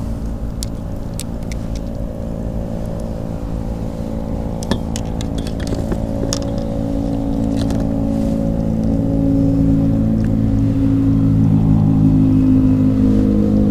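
An engine drones steadily, getting louder over the last few seconds, with a few light clicks and knocks mixed in.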